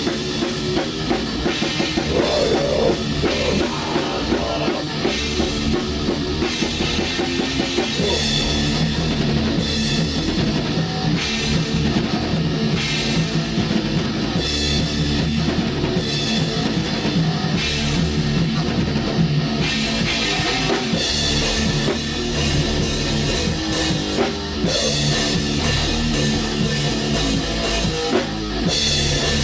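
A black metal band playing at rehearsal: a full drum kit with cymbals driving under guitar, loud and continuous, the cymbals washing brighter in stretches from about a third of the way in.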